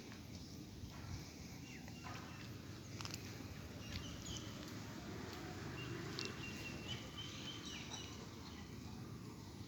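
Birds chirping faintly over a steady low background rumble, with the short calls clustering in the second half.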